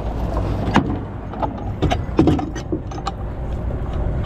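Scattered metallic clinks and knocks of steel chain and a snatch block being handled on a wooden trailer deck, over the steady low hum of a truck engine idling.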